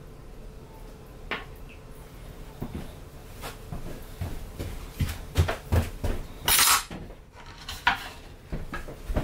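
A steel kitchen knife handled on wooden cutting boards: scattered knocks and clinks of metal on wood, getting busier toward the end, with a brief scrape about two-thirds of the way through.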